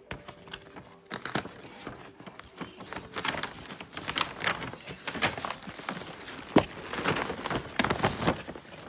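Brown kraft-paper mailer crinkling and rustling as it is handled and folded, in a run of irregular crackles that starts about a second in and grows denser.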